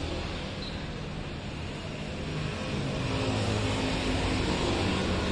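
A motor vehicle engine running steadily, getting louder about three seconds in.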